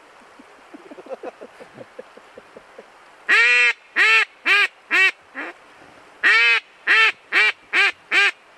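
Mallard duck call blown by a hunter to bring in incoming ducks: a few faint quick clucks, then two loud quacking series, each a longer quack followed by three or four shorter ones.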